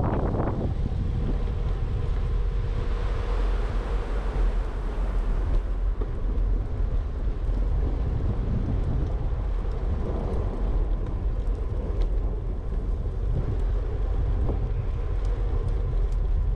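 Wind buffeting a GoPro's microphone as a bicycle rolls along a paved trail: a steady low rumble with no pauses.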